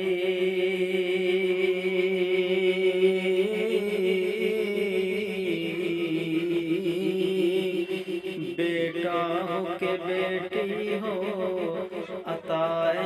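A man's voice singing long, wavering held notes with no clear words, in the melodic tarannum style of Urdu poem recitation. About eight and a half seconds in, the melody moves to a new, more ornamented line with gliding pitches.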